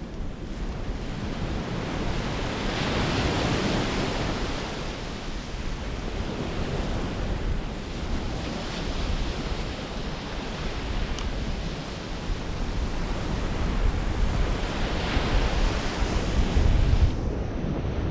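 Sea waves breaking and washing on the beach, surging louder several times, with an onshore breeze buffeting the microphone in low rumbles, strongest near the end.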